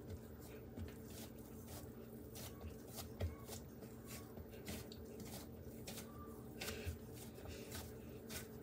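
Faint, scattered small taps and rustles of hands spreading out biscuit dough and adding blueberries to it, over a steady low hum.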